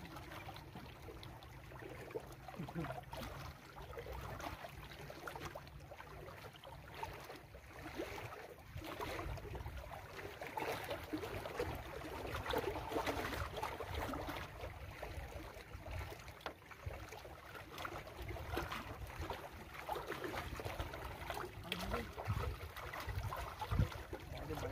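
Small waves lapping and splashing against a rocky lakeshore, an uneven wash of water over a steady low rumble.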